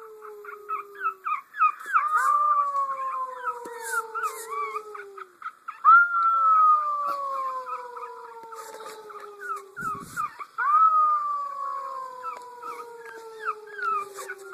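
Dog howling: several long howls that slowly fall in pitch, overlapping one another, with short high yips and whines between them.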